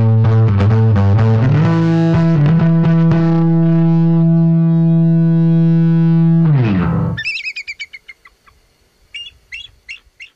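Distorted electric bass through an Orange Crush Bass 100 combo: a quick run of notes, then one long held note that slides down in pitch and stops about seven seconds in. Short bird chirps follow in the quiet near the end.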